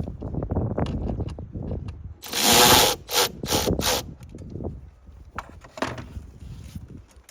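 Hand tools and plastic intake parts clicking, knocking and rubbing as the engine air filter box is closed up and fastened, with a loud rasping burst about two seconds in followed by three short ones.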